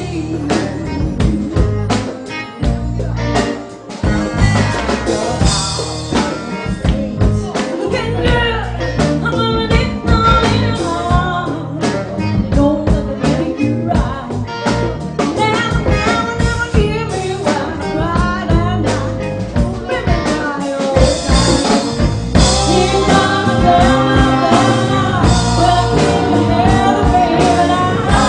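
Live rock band playing, with drums and a woman singing lead.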